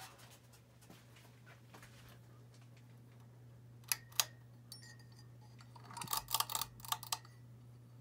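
Hunter Right At Home 52-inch ceiling fan running with a steady low motor hum. Its pull-chain switch clicks twice about four seconds in, then a flurry of clicks and chain rattles follows around six to seven seconds as the chain is worked to change speed.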